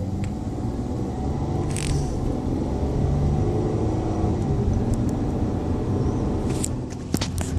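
Car driving: steady engine and road rumble heard from inside the cabin, with a few short sharp clicks about two seconds in and again near the end.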